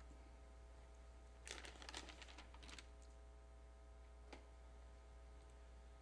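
Near silence over a steady low hum. About one and a half seconds in comes a brief rustle of paper notes being handled, lasting about a second, and a single faint click follows a couple of seconds later.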